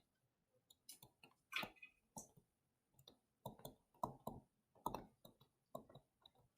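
Near silence with a dozen or so faint, short clicks at irregular intervals.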